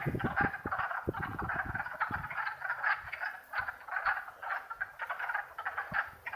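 Chorus of many wood frogs calling together, a dense overlapping mass of short, rapid duck-like clucks. There are a few low thumps in the first two seconds.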